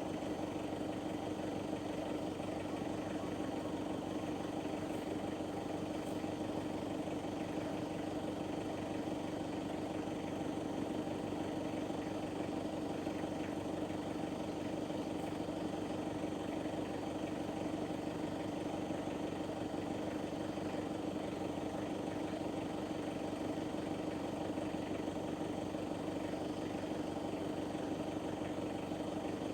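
A vehicle engine running steadily at an unchanging pitch, with no revving or gear changes.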